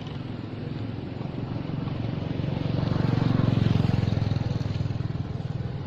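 A motor vehicle's engine passing by, growing louder to a peak about three and a half seconds in and then fading.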